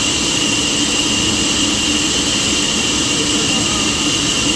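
Sawmill wheel saw running steadily: a loud, even machine noise with a constant high whine and a low hum.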